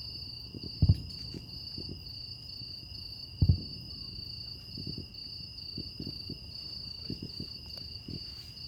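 Steady high-pitched insect chorus, a continuous trill with a slight regular pulse, under short low thumps: two loud ones about a second in and near the middle, and several fainter ones.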